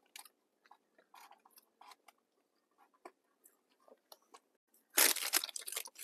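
Close-up chewing of a flaky pastry patty: soft, scattered crunches and mouth sounds. About five seconds in comes a sudden loud crackle of a paper bag as the patty in it is handled.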